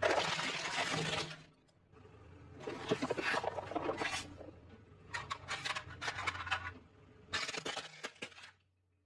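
Car tyre rolling over and crushing plastic toys on concrete: crackling and crunching in four separate bursts, each a second or so long.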